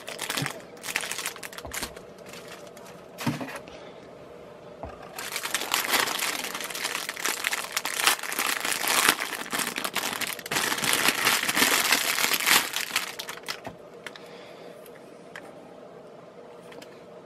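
Thin clear plastic bag crinkling and rustling as a plastic pistol-grip mini tripod is worked out of it by hand. The crinkling comes in spells, loudest through the middle stretch, and dies down near the end.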